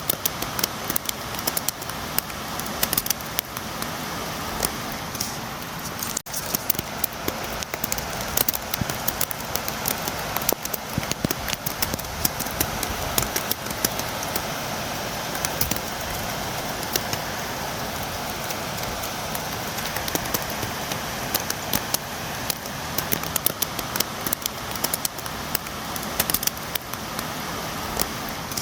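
Steady rain pattering against a window, with a dense scatter of sharp drop ticks over an even hiss. The sound cuts out for an instant about six seconds in.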